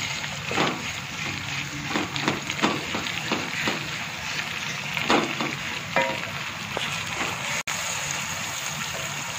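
Minced meat frying in hot oil with onions in a metal pot, a steady sizzle, stirred with a wooden spoon that scrapes and knocks against the pot several times.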